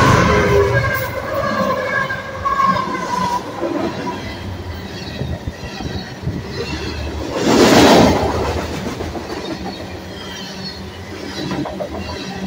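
Freight train passing close by, its cars rumbling and clattering on the rails. A held tone fades out over the first few seconds, and a loud rushing burst comes about eight seconds in.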